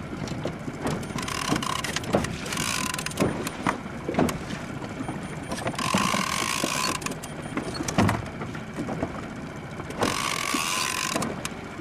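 Big-game fishing reel whirring in four bursts of about a second each, under the load of a hooked amberjack on a bent rod. Short clicks and knocks of the rod and reel come in between.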